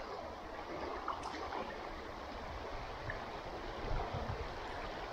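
Steady rush of swift-flowing river water.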